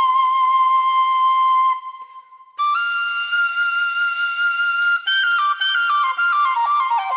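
Solo flute melody. A long held high note fades out about two seconds in; after a brief gap a slightly higher note is held, then the melody steps downward note by note.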